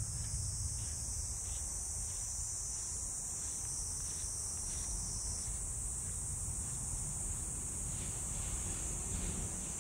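A steady, high-pitched chorus of insects such as crickets, over a low, even rumble.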